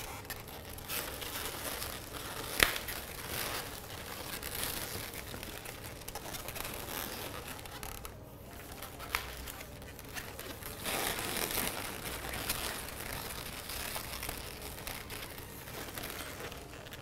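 Twisted latex modelling balloons rubbing and rustling against each other and against hands as a balloon figure is turned and its arm adjusted, with a sharp click about two and a half seconds in and a smaller one around nine seconds.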